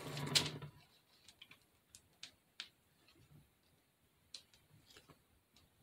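Faint, scattered clicks and crinkles of a plastic piping bag being handled and squeezed, after a brief breathy hum near the start.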